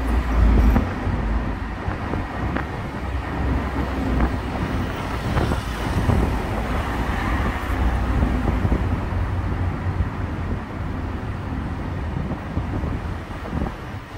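City street traffic: vehicles running past in a continuous wash of road noise, heaviest in a deep low rumble.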